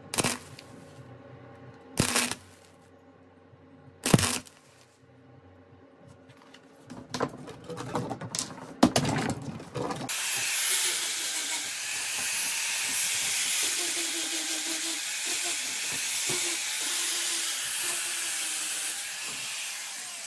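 A few short, sharp bursts of noise a second or two apart. Then, about halfway through, a small angle grinder starts running with a steady hissing grind.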